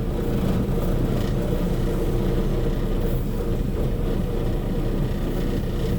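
Semi truck's diesel engine running steadily at low revs while the rig backs up.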